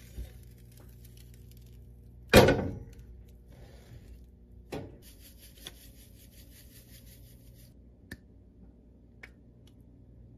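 Kitchenware handled on a stainless-steel counter: one loud knock with a short ring, a softer knock a couple of seconds later, then a light pattering hiss for about two and a half seconds as sugar is shaken from a bag onto egg toast, with a few small clicks.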